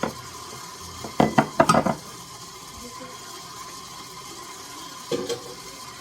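Kitchen utensil knocking and clinking against a mixing bowl while an ingredient is added to cookie dough: a quick cluster of knocks about a second in and a shorter pair near the end.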